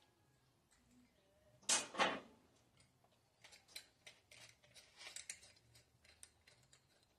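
Handling noises: two sharp knocks about two seconds in, then a run of light, scattered clicks and rattles as tools are handled.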